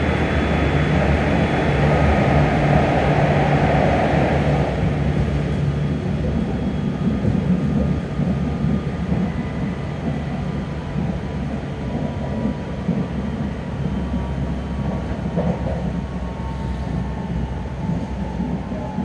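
Cabin sound of a Hokuhoku Line HK100 diesel railcar running at speed: steady engine and wheel-on-rail noise. It is louder and hissier in a tunnel and drops in level about five seconds in, as the car comes out into the open.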